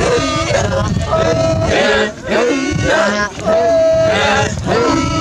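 Maasai men chanting a traditional welcome song together, their voices in short repeating phrases with held notes over a low hum.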